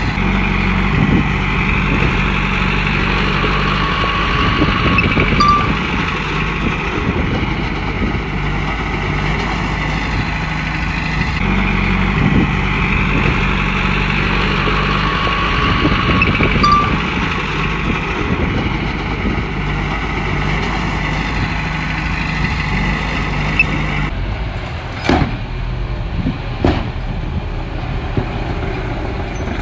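Komatsu bulldozer's diesel engine working under load, with a high metallic whine from the machine that swells and fades in cycles about every twelve seconds. Near the end, two sharp knocks.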